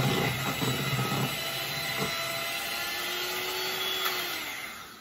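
Electric hand mixer running, its beaters whipping thin icing in a glass bowl; it is switched off near the end and the motor winds down.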